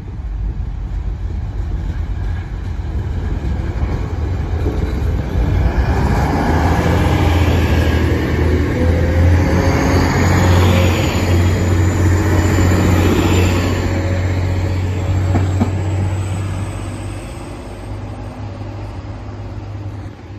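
A Class 185 diesel multiple unit passing at low speed, its underfloor diesel engines running with a steady low drone. It grows louder as the train approaches, is loudest for several seconds as it goes by, then fades. A faint high whine climbs in pitch in the second half.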